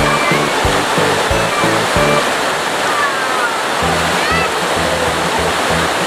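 Small waterfall pouring over a rock ledge into a shallow pool, a steady loud rush of water. Background music with a steady bass beat runs under it.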